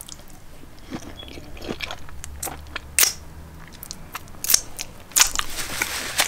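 Close-up mouth sounds of someone biting and chewing lightly cooked, still-crunchy broccoli: irregular crisp crunches, with louder bites about three, four and a half and five seconds in.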